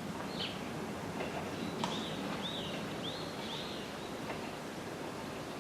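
A bird calling a few short, chirping notes over steady outdoor background noise.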